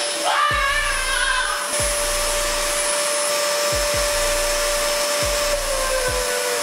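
A small appliance motor, like a vacuum cleaner, runs with a steady whine and rushing air. A few low thumps come through, and the whine sags a little in pitch near the end.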